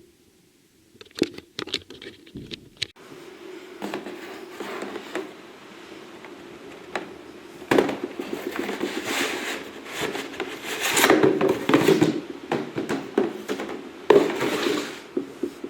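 Things being handled and moved about on a hard surface: a few light clicks and knocks, then scraping and rustling that swells and fades for about ten seconds.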